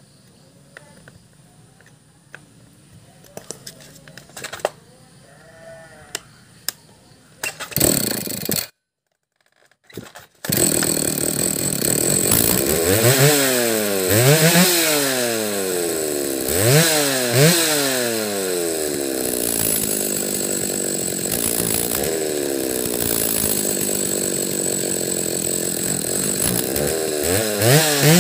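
Stihl MS 310 chainsaw's two-stroke engine, fitted with a non-original replacement carburettor. After a few seconds of light clicking and tapping and a short gap, it starts about ten seconds in and runs, revved up and down in sharp blips on the throttle with steadier running between them.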